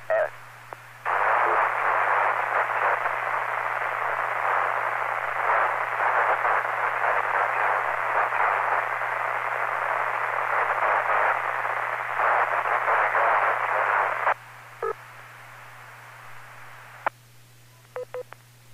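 Amateur radio FM receiver hiss: an even band of static coming through the remote base's receive audio for about thirteen seconds, then cutting off abruptly as the squelch closes. A steady low hum sits underneath, and a click and a few faint short blips come near the end.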